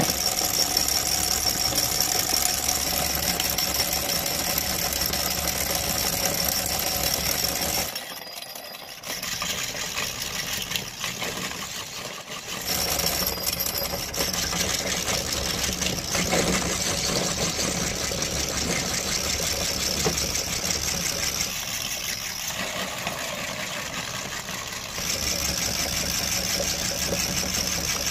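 Motor-driven cast-metal meat grinder running and grinding soft food, a steady mechanical running noise with a high whine over a low hum. It dips quieter twice, around eight and twelve seconds in, and steps up again a few seconds before the end.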